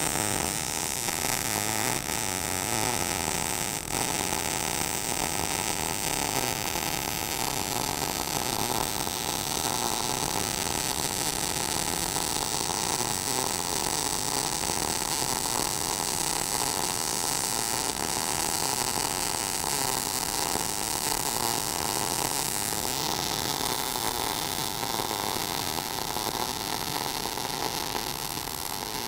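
MIG welding arc with .030 ER70S-6 wire under C25 shielding gas at about 17 volts, running steadily in short-circuit transfer during a fill pass on steel pipe.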